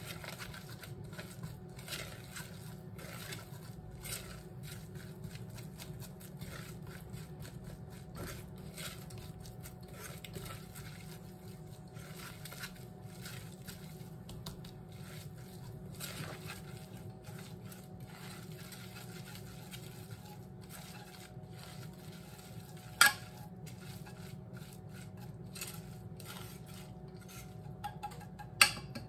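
Scrambled eggs being stirred in a saucepan with a silicone whisk: soft scraping and small clicks of the whisk against the pot. Two sharp knocks of the whisk against the pot stand out near the end.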